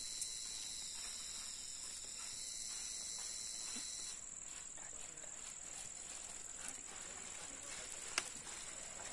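Steady high-pitched insect chorus in dry forest, several shrill bands together, thinning to a single high note about four seconds in. One sharp click near the end.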